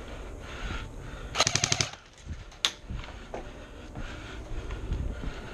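An airsoft electric rifle fires a short full-auto burst of about eight rapid shots in half a second. A single sharp click follows about a second later.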